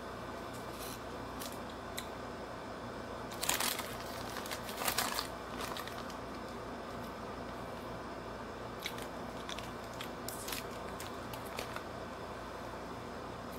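Paper food wrapping being handled and unwrapped, crinkling and tearing, with two louder rustles about three and a half and five seconds in and scattered faint crinkles after them.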